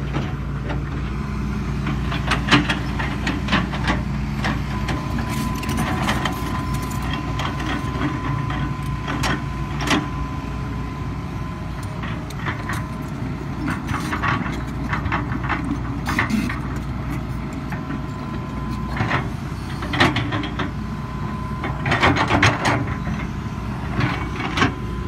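Hitachi crawler excavator's diesel engine running steadily under load, with repeated knocks and scrapes as the bucket digs and drags soil across a slope. A thin steady whine runs through much of the middle.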